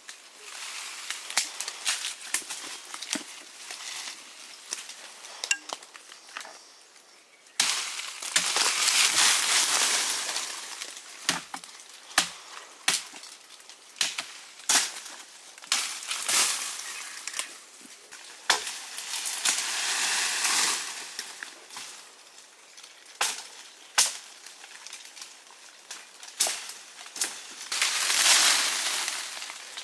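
Cooking sounds: frequent knocks and clinks of utensils, with three swells of hissing lasting a few seconds each.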